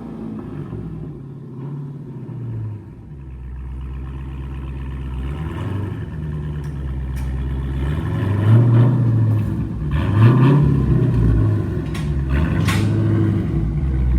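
Dodge Challenger Scat Pack's 6.4-litre HEMI V8 running through an exhaust with the mid muffler deleted. It idles at first, then is revved several times in the second half, each rev rising and falling back.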